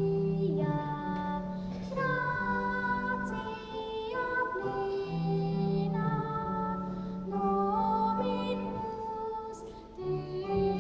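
A young girl singing a slow song with long held notes, accompanied on a Roland keyboard, with a short pause between phrases near the end.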